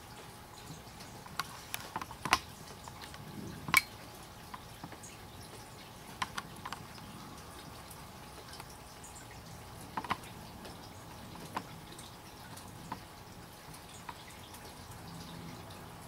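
Water dripping after a night of rain: irregular single drops landing close by, a few much louder than the rest, the loudest about two and four seconds in, over a faint steady hiss.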